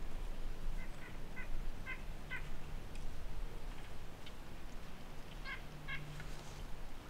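A bird calling in short pitched notes: a run of five calls in the first two and a half seconds, then two more about five and a half seconds in.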